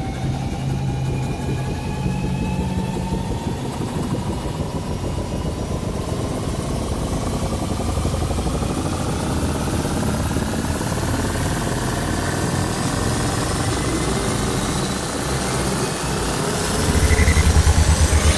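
Sound effect of an engine or machine spooling up: a low rumble under a whine that rises slowly and steadily in pitch, growing louder near the end.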